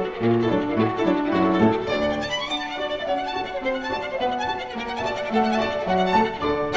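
Instrumental music with a quick melody of notes that change several times a second.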